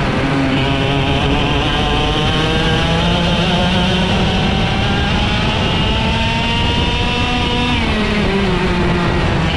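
IAME X30 125cc two-stroke kart engine under racing load. Its pitch dips at the start, climbs steadily for about seven seconds as the kart accelerates, then falls near the end as the kart slows.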